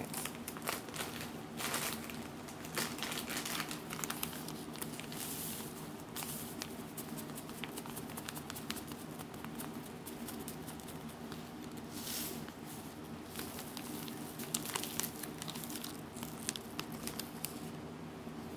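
Thin plastic bags crinkling and crackling as they are squeezed and shaken out, in irregular bursts, over a steady low hum.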